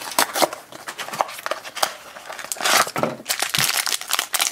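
Foil blind bag being crinkled and torn open by hand, an irregular crackling rustle that gets louder about three seconds in.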